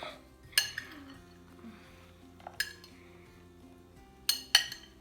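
Cutlery clinking against a mixing bowl as ingredients go in: sharp ringing clinks about half a second in, one near the middle and two close together near the end. Faint background music plays underneath.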